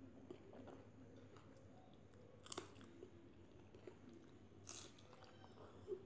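Faint chewing of a mouthful of rice and curry, soft mouth sounds with a few sharp crunchy clicks, the clearest about two and a half and nearly five seconds in.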